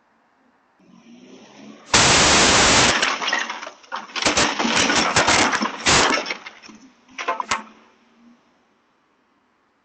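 A sudden, very loud crash, overloading a doorbell camera's microphone for about a second. Several seconds of loud, ragged crashing and crackling follow, then a couple of sharp clicks before it dies away.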